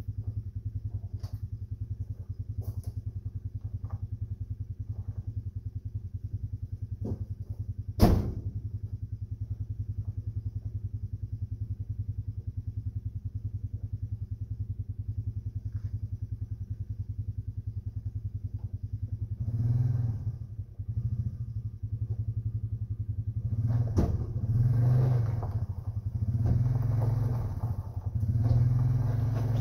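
A vehicle engine idling with a steady low pulse, a single sharp bang about 8 seconds in, and from about two-thirds of the way through the engine repeatedly picking up and dropping back, as when a vehicle is eased along under power.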